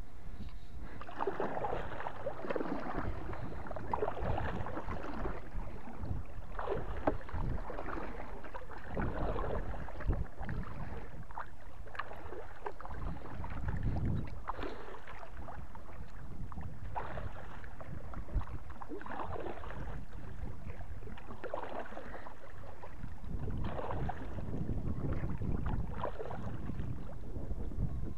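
Kayak paddle strokes: the blade dipping and pulling through calm water in repeated splashing swishes, roughly one every two to three seconds.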